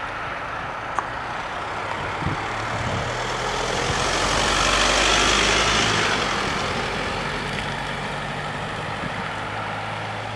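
A pickup truck drives past close by and on over the crossing. Engine and tyre noise swell to a peak about five seconds in and then fade, over a low steady engine hum.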